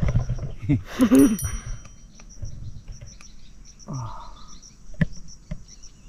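An insect chirping in a steady rhythm of short, high pulses, about three a second, with a single sharp click near the end.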